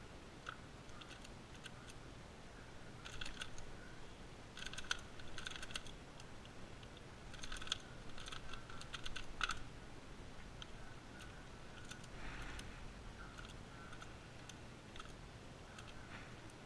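Moyu magnetic Skewb being turned fast in a timed speedsolve: flurries of quick plastic clicks and clacks from the turning puzzle, densest in the middle stretch, with a few scattered clicks before and after.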